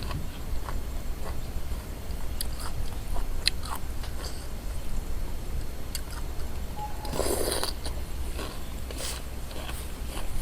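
Close-miked eating: chewing and crunching a mouthful of noodle soup with crisp pork rind, with sharp crunches scattered through. A louder, longer noisy sound comes about seven seconds in.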